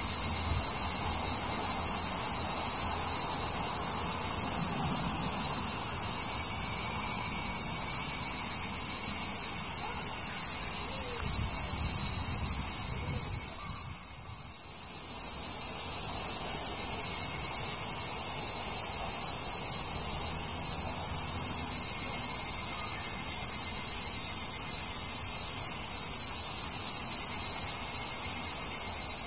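A dense chorus of cicadas buzzing steadily at a high pitch. It dips briefly about halfway through, then comes back.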